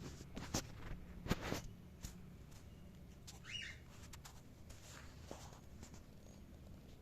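A cockatiel gives one short chirp about halfway through, among a few scattered clicks and taps, loudest in the first two seconds.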